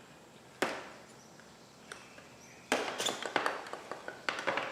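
Hand handling of a motorcycle's stock front turn signal and its wiring as they are pulled out: one sharp click, then about two seconds later a quick run of clicks and rattles.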